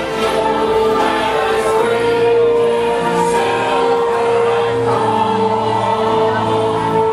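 A choir singing a Christmas carol with musical backing, holding one long note for most of the passage before moving on about five seconds in.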